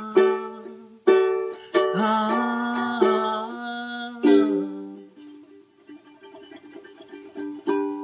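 Ukulele strummed in chords, each strum ringing on; about four seconds in a chord is left to ring and die away quietly, and a fresh strum comes just before the end.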